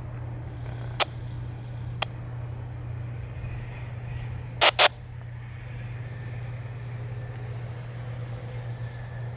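Empty coal hopper cars of a freight train rolling past at speed: a steady low rumble with sharp wheel clacks over the rails, single clicks about one and two seconds in and a loud double clack near the middle.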